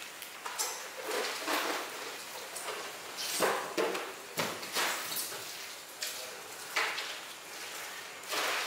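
A knife slicing through a raw tuna loin on a wooden counter, with irregular wet scrapes and soft knocks about once a second over a steady background hiss.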